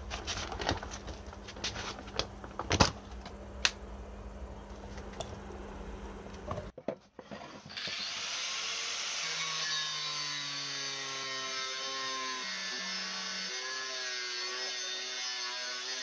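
Scattered knocks and clicks over a low steady hum. After a short gap about seven seconds in, a corded angle grinder runs its abrasive disc into a steel bar with a steady grinding hiss.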